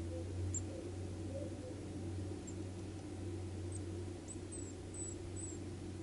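Short, very high, thin calls of small songbirds: a single call about half a second in, another near the middle, and a quick run of about five in the second half. A steady low hum runs underneath.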